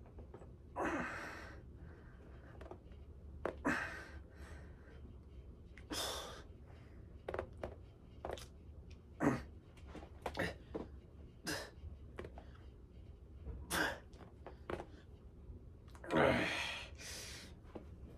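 A man's sharp, effortful breaths, about ten of them a second or two apart, as he strains through lying dumbbell skull crushers. A longer, louder breath comes near the end.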